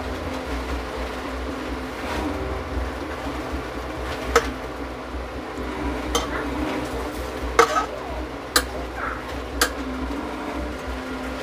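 A wire-mesh skimmer clinking against metal cooking pots as half-cooked basmati rice is scooped from boiling water and layered into the biryani pot. There are about five sharp clinks in the second half, over a steady low hum.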